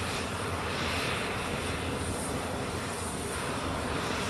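A C-17 transport's turbofan engines running steadily: an even high whine over a low rumble.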